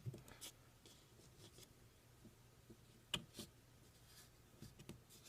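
Faint small clicks and ticks of the Glock striker's spring cups and striker spring being handled and fitted onto the striker, with a sharper pair of clicks about three seconds in.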